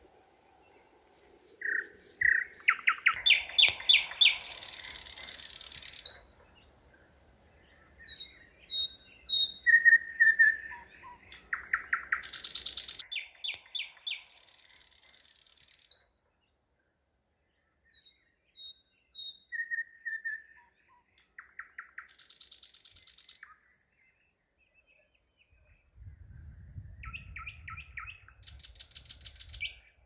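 Nightingale singing: phrases of fast repeated clicking strokes, whistled notes and buzzy high rattles, with pauses of a second or two between them. A low rumble comes in near the end.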